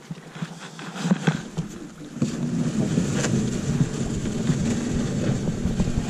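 A few knocks, then from about two seconds in a steady grinding scrape: a small plastic rowboat's hull dragging over the sandy, gravelly shore as it is pushed off.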